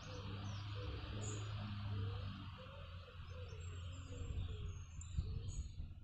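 Outdoor garden ambience: a few faint bird chirps over a steady low rumble.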